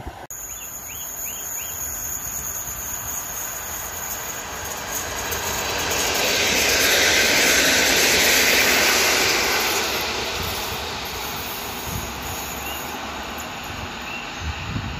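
Regional electric multiple unit passing close on the track: a broad rush of wheel-on-rail noise that swells to its loudest midway and then fades back. A few faint bird chirps about a second in.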